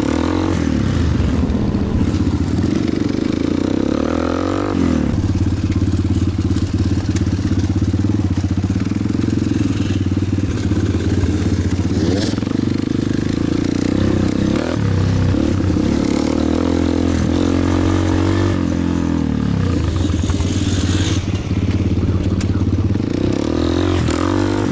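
Kayo pit bike's single-cylinder engine running under way, its pitch rising and falling as the throttle opens and closes, with drops about 5, 15 and 19 seconds in and again near the end.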